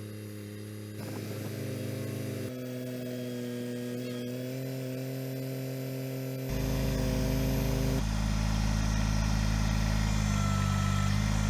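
Kubota BX23S sub-compact tractor's three-cylinder diesel engine running steadily while working the backhoe hydraulics to dig. Its note grows louder in steps and turns deeper and heavier about six and a half seconds in.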